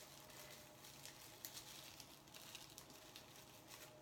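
Near silence: room tone with a faint steady hum and a few soft, scattered clicks or rustles.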